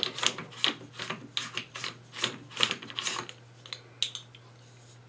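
An AR-15 buffer tube being unscrewed by hand from the lower receiver: a run of short metal-on-metal scraping rasps, about three a second, as the threads turn. A few light metal clicks come about four seconds in as the tube comes free.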